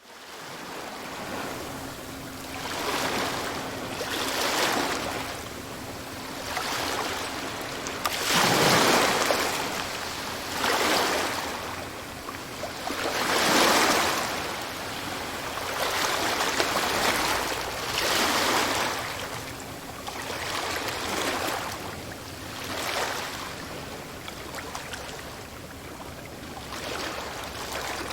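Sea waves washing onto a shore, a rushing surge that swells and recedes every few seconds. The biggest breakers come about nine and fourteen seconds in.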